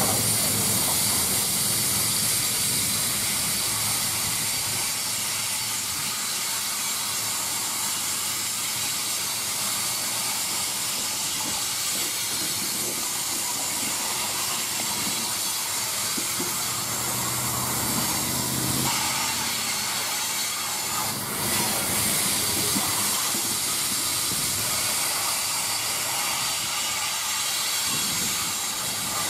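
Loaded coal cars rolling past on the rails, their steel wheels making a steady hiss on the track.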